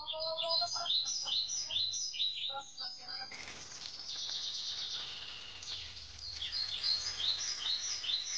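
Small birds chirping repeatedly. About three seconds in, a tap is turned on and water runs steadily onto vegetables in a plastic basket.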